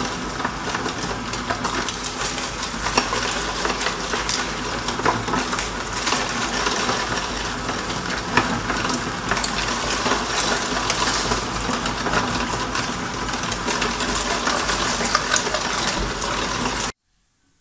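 Electric meat mincer running while grinding whole raw chicken necks: a steady motor hum under continuous crunching and crackling as the bones are crushed through the auger and plate. It cuts off suddenly near the end.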